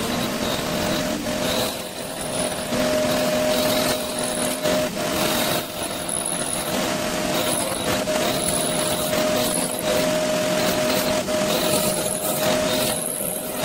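Pillar drill running with a small cutter milling a slot into the end of a stainless steel boss: a steady motor hum under harsh cutting noise, with a high squeal from the cutter coming and going.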